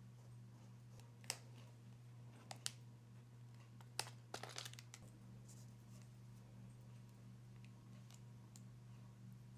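A few sharp clicks and taps of small parts being handled, about a second in and twice more around two and a half seconds, then a louder click at four seconds followed by a quick rattle of clicks. A low steady hum sits underneath.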